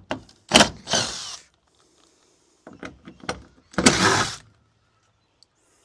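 Something heavy being slid and knocked about, twice: each time a sharp clunk and then about a second of scraping.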